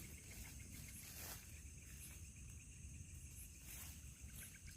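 Faint nighttime insect chorus: a steady high-pitched drone over a low rumble, with a soft click about a second in.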